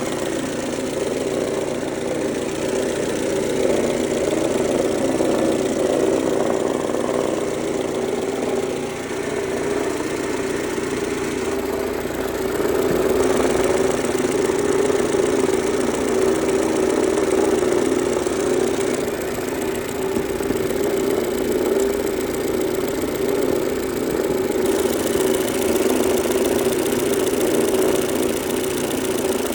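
Mercedes-Benz A140 (W168) four-cylinder engine idling steadily with a knocking, rattling mechanical noise, which the owner suspects comes from the timing chain tensioner.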